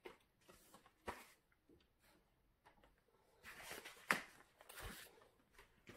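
Faint handling noises: scattered soft rustles and a few light clicks, the sharpest about four seconds in, followed by a dull thud.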